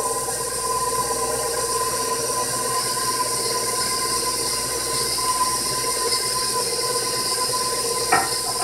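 Bowl-lift electric stand mixer running steadily, its motor whining as the beater works a thick pound cake batter of butter, sugar and sour cream. A brief knock comes near the end.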